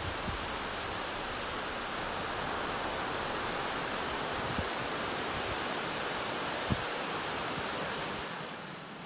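Steady, even rush of ocean surf and wind, with two brief low thumps of wind on the microphone. The rush drops in level near the end.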